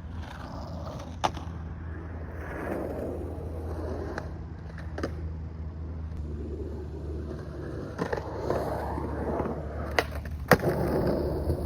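Skateboard rolling on pavement with a steady low rumble of the wheels, broken by several sharp clacks, the loudest near the end.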